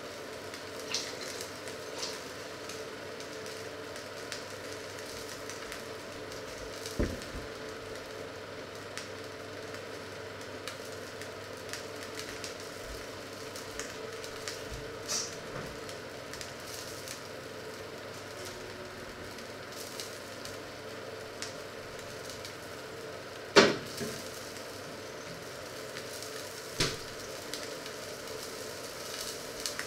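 Steady sizzling from fat heating in a lidded cast-iron pan on the hob, over a faint steady hum. A few sharp knocks cut through it, the loudest about two-thirds of the way through.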